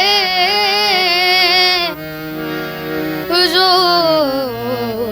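A boy singing a Sufi-style Hindi film song, holding a long wavering, ornamented note, then a short gap of steady held accompanying notes before he comes in again with the next line about three and a half seconds in.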